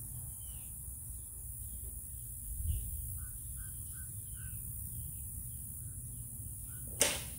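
Birds calling in short, scattered chirps over a steady low rumble, with a run of four similar notes around the middle. There is a soft low thud about a third of the way in, and a single sharp knock near the end.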